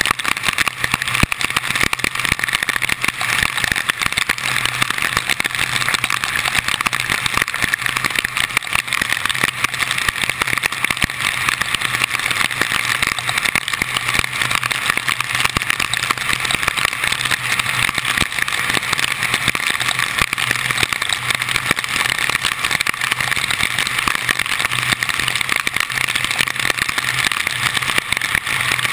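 Car driving on a rain-soaked road in a tropical storm, heard through a GoPro's housing mounted outside on the car: a steady rush of wind, rain and tyre spray with a constant patter of drops and a low steady hum underneath.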